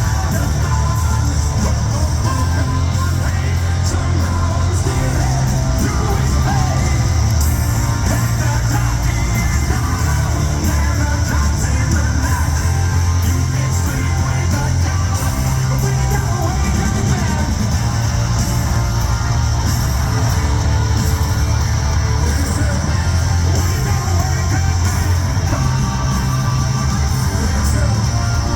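Live hard rock band playing loud in an arena, with distorted electric guitars, heavy bass and drums, and a singer's voice, recorded from the crowd with a boomy, echoing sound.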